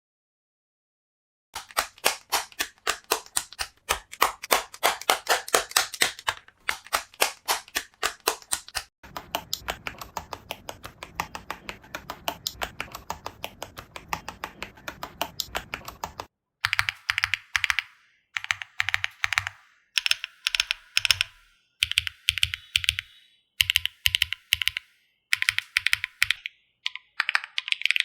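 Mechanical keyboard fitted with HMX Cheese linear switches being typed on, with a clack sound. After about a second and a half of silence come rapid keystrokes. Past the middle the typing comes in short bursts with brief pauses between them, then runs fast again near the end.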